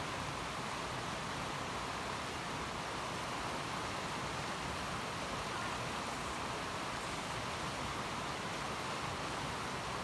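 Steady rushing of a fast, shallow mountain river running over rocks and small rapids.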